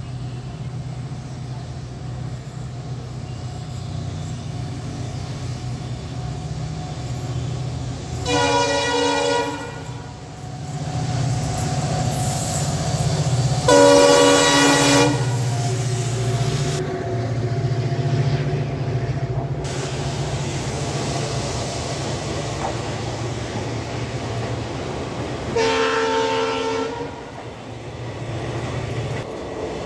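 Indian Railways WDG4 diesel-electric locomotive, its 16-cylinder two-stroke EMD engine running steadily as it passes, sounding its horn three times: about 8 s in, loudest around 14 s as it draws level, and again near 26 s. Near the end its coaches roll past with wheels clacking on the rails.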